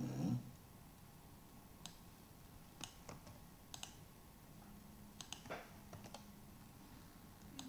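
Scattered computer mouse and keyboard clicks, single and in quick pairs, while text is selected and copied between programs on a PC. A brief low voice sound right at the start.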